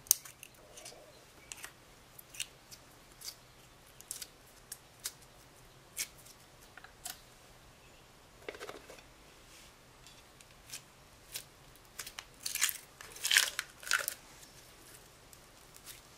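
Small plastic makeup containers and a plastic case being handled and opened by hand: sharp plastic clicks and taps every second or so, then a louder quick run of snaps and crackles near the end.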